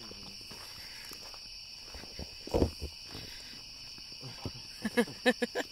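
Night insects, crickets or katydids, chirring steadily in a high, even chorus. A dull thump comes about two and a half seconds in, and a few short voice-like sounds come near the end.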